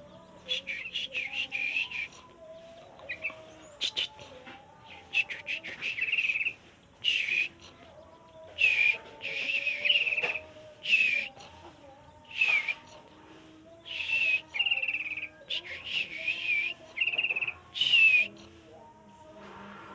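Sooty-headed bulbul (trucuk) singing: short, bubbly warbling phrases repeated every second or two with brief pauses between them.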